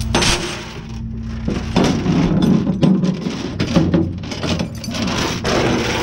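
Steel tow chains and hooks rattling and clanking against a flatbed's diamond-plate steel deck as they are pulled by hand, in a string of irregular knocks.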